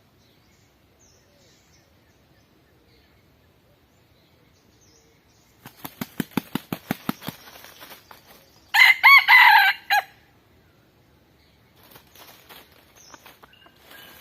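A rooster beats its wings rapidly for about a second and a half, then crows once, loudly, a short cock-a-doodle-doo that is the loudest sound. Faint scattered fowl noises follow near the end.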